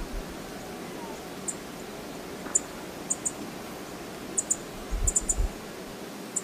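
Steady rushing noise of the Brooks Falls waterfall, with scattered very short, high-pitched ticks and a few low thumps about five seconds in.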